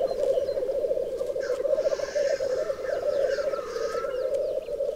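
Chorus of male black grouse displaying, many low bubbling, cooing songs overlapping in a continuous fast warble. A hissing sound rises over the chorus from about two to four seconds in.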